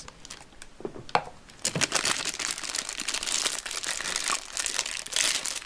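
Thin clear plastic bag crinkling as hands handle it and pull a Play-Doh tub out of it. There are a few light taps in the first two seconds, then steady crackly crinkling until just before the end.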